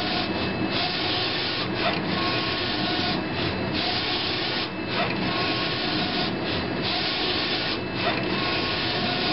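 HP DesignJet 510 wide-format inkjet plotter printing its colour calibration page: the printhead carriage sweeps back and forth across the paper with a steady whirring rush, broken by short pauses at each end of travel, about one pass every second and a half.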